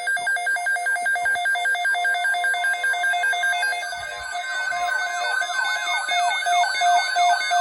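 Electronic alarm tones: a rapid two-tone warble flipping between a low and a high pitch, changing about four seconds in to repeated falling sweeps, about three a second.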